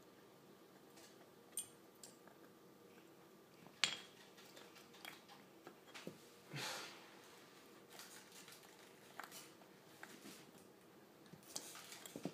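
Corgi puppy gnawing on an elk antler: scattered clicks and knocks of teeth and antler, with one sharp knock about four seconds in and a short breathy snort a little later.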